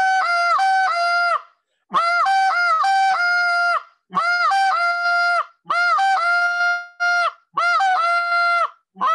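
Short reed goose call blown in the 'siren' drill: quick breaks back and forth between a low note and a high note, each run ending on a held high note, repeated about five times with short pauses between. It is a practice drill for the moan, working the air pressure and jaw movement.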